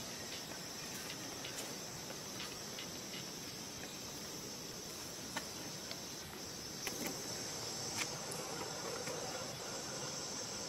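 Steady, high-pitched chorus of insects, with a few short faint ticks scattered through it.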